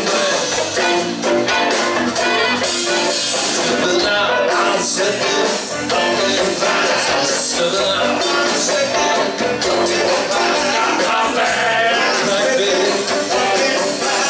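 Blues band playing live: a man singing over electric guitar, bass guitar and drums.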